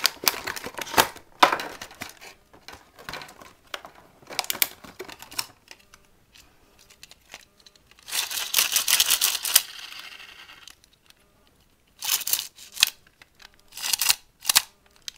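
Clicks and rattles of a plastic Beyblade string launcher being handled. About eight seconds in, the launcher's string is pulled out with a whirring that lasts about two seconds and then fades. Short bursts of clicking follow near the end.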